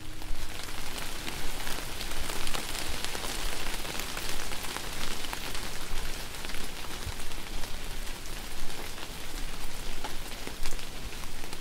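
Steady rain falling and pattering on a surface, a dense hiss with many small drop ticks.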